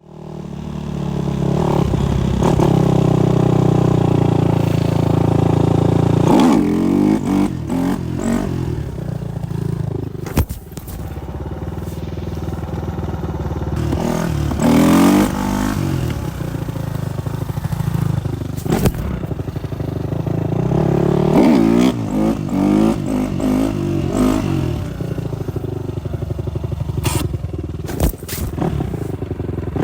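Supermoto motorcycle engine running and revving, the pitch climbing and falling back several times, with a few sharp clicks around ten seconds in and again near the end.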